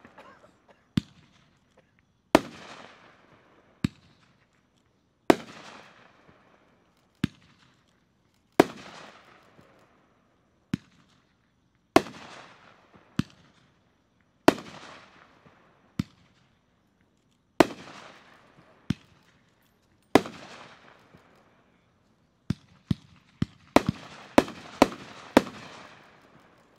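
A Nishiki Willow consumer firework cake firing. The reports come in pairs every few seconds: a sharper, quieter report, then about a second and a half later a louder bang with a long fading hiss. Near the end the shots come rapidly, several a second.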